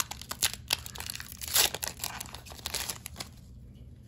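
Foil wrapper of a Pokémon TCG booster pack crinkling and crackling as it is torn open by hand, with one longer, louder crackle about a second and a half in. The crackling stops a little after three seconds.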